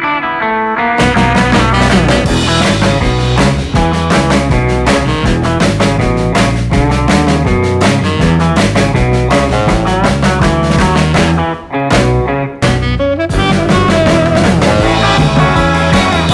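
Background rock music with guitar and a steady drum beat; the full band comes in about a second in and drops out briefly near the end before resuming.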